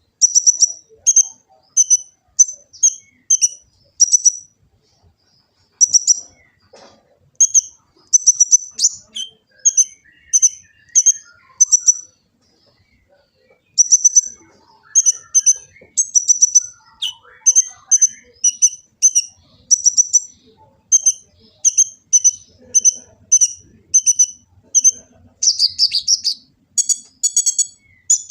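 Kolibri ninja (olive-backed sunbird) singing: a run of short, high chirps about two a second, with a pause about twelve seconds in, breaking into a faster, busier twitter near the end.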